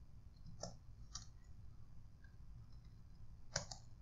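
A few faint computer keyboard keystrokes, about four separate clicks: two in the first half and two in quick succession near the end.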